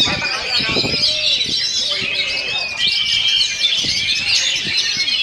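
Oriental magpie-robin (kacer) singing a fast, unbroken song of high whistles, slides and trills, packed with borrowed phrases from other birds.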